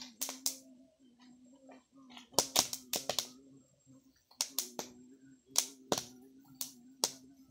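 Sharp crackles and pops from an open wood fire roasting ears of corn, coming in small clusters of several quick snaps, over a steady low hum.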